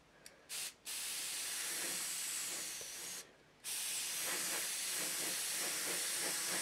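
Gravity-feed airbrush spraying primer: a couple of short bursts of air hiss, then a steady hiss that stops briefly a little after three seconds in and starts again.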